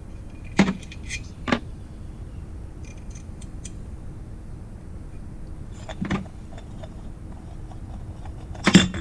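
Metal tools and engine parts being handled during a bicycle-engine teardown: a few separate sharp metallic clinks and knocks, two in the first couple of seconds, one about six seconds in and a louder cluster near the end, over a steady low background noise.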